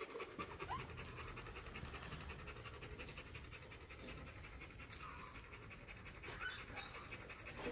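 Belgian Malinois panting faintly in a quick, even rhythm.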